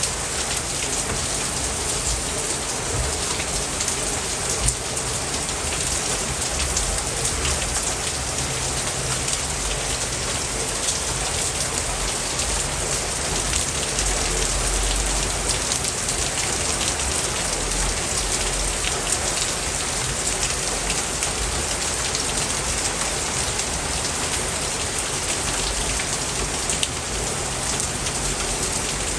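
Steady rain falling: an even hiss with many small drop ticks throughout.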